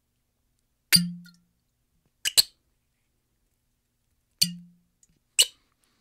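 Cork pulled from a bottle, popping twice with a hollow, quickly fading tone: about a second in and again a little past four seconds. Between and after the pops come short sharp clicks of cork on glass: a quick double click in the middle and a single click near the end.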